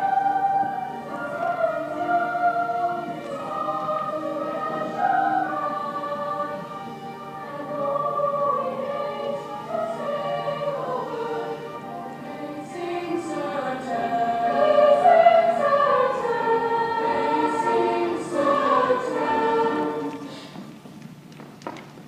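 A choir of young voices singing a musical number with held, gliding notes. The singing dies down near the end.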